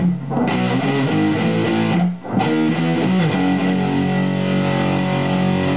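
Electric guitar played through a Danelectro Cool Cat Fuzz pedal with the fuzz at maximum and a clean boost engaged: heavily distorted sustained notes with a hiss behind them. The playing breaks off briefly about two seconds in, and a bent note follows about a second later.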